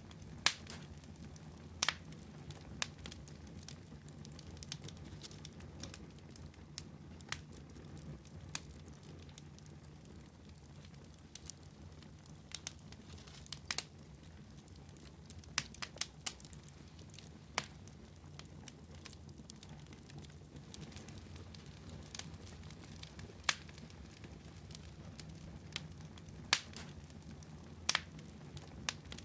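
Wood fire crackling in a fireplace: irregular sharp pops and snaps, a few every couple of seconds, over a steady low rumble.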